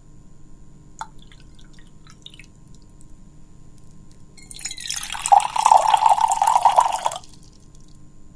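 Water poured into a glass for about two and a half seconds, starting about four and a half seconds in. Before it there is a light tap and a few small drips.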